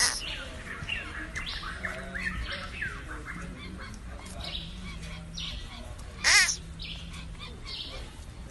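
Baby sloth calling with high, squeaky descending cries, the loudest about six seconds in, among many shorter chirps.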